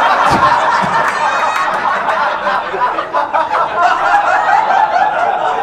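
Comedy-club audience laughing loudly and steadily in response to a roast joke.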